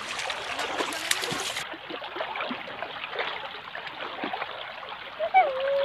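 River water flowing and trickling, with small irregular splashes.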